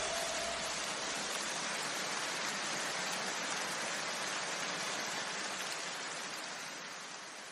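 A steady rushing hiss like white noise, with no tone or rhythm, fading out slowly.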